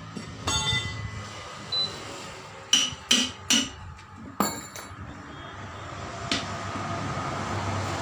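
Steel tyre levers clanking against a truck tyre's steel wheel and a manual tyre-changing stand: a series of about seven sharp metallic clinks, several of them ringing, irregularly spaced over the first few seconds. A steady rumbling noise builds toward the end.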